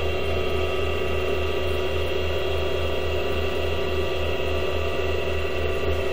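Modified-sine-wave power inverter (12 V DC to 120 V AC) running under load, giving off a steady electrical hum with a slight regular pulsing and a whine made of several steady tones.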